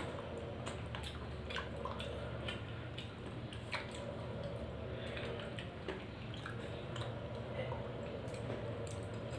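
Eating sounds: soft chewing and small wet mouth clicks, scattered irregularly, over a steady low hum.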